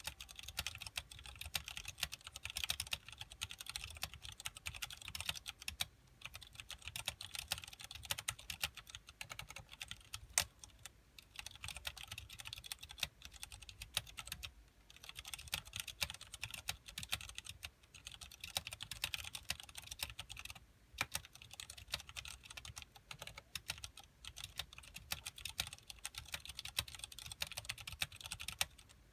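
Continuous fast typing on a mechanical keyboard with Cherry MX Clear switches and PBT keycaps in an acrylic case: a dense stream of key clacks, broken by a few brief pauses.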